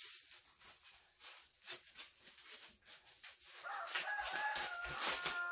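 Paper and plastic wrapping crinkling and rustling as a packed item is unwrapped by hand. About three and a half seconds in, a drawn-out pitched sound lasting about two seconds, the loudest thing here.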